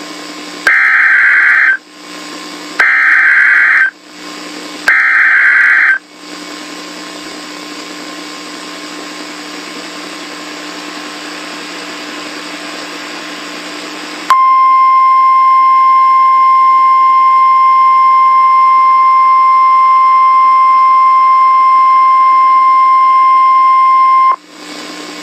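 Emergency Alert System signal over radio hiss: three short screeching bursts of SAME header data, about a second apart, then a single steady alert tone held for about ten seconds, announcing a tornado warning.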